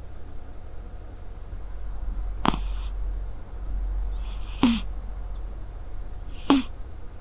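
Sleeping Scottish Straight cat snoring: three short, sharp snores about two seconds apart, over a steady low hum.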